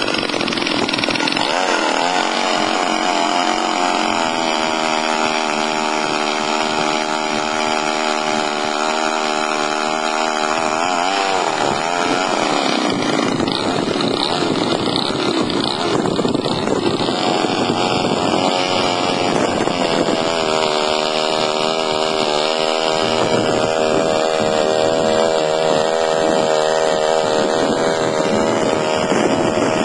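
Gas-powered ice auger's engine running while boring through lake ice. Its pitch wavers and shifts in the middle, then settles into a steady drone again.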